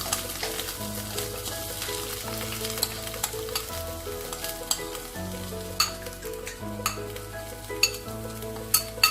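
Ginger and spices frying in ghee in a kadhai on low heat: a steady sizzle, with a spoon stirring and scraping against the pan in scattered sharp clicks.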